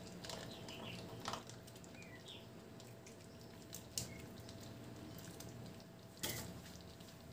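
Faint handling sounds as tomato sauce is squeezed from a plastic pouch onto a wok of stewing pork and vegetables: soft rustling and a few light clicks, with a sharper knock about six seconds in.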